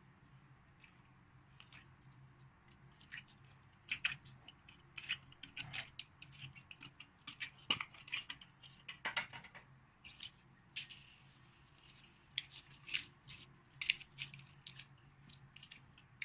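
Slime being squished and kneaded by hand, giving irregular sticky crackles and pops that start about a second in.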